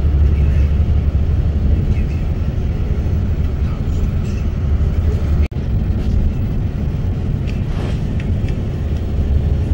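Steady low rumble of road and engine noise inside a vehicle cruising on a highway. The sound cuts out for an instant about five and a half seconds in.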